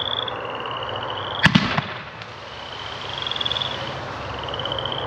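A 50 mm single-shot comet firework (gold glittering comet with blue line) fires from its tube with a sharp bang about a second and a half in. Two quicker, smaller reports follow right after it.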